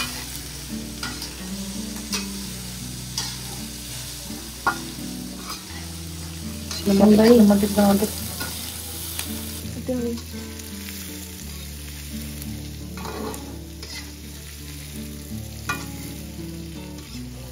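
Offal sizzling as it is stir-fried in a wok, with a metal spatula scraping and clicking against the pan. A brief, louder wavering sound stands out about seven seconds in.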